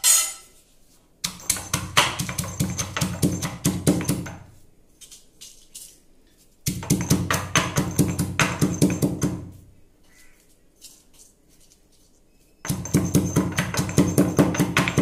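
Stone pestle pounding whole roasted dry red chillies and garlic cloves in a heavy stone mortar, in three bouts of rapid, even strokes with short pauses between them.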